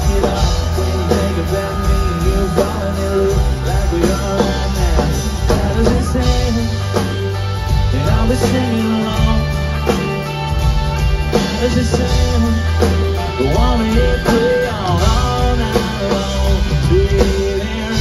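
Live country-rock band playing an instrumental break: an electric guitar solo with bending notes over drums and bass.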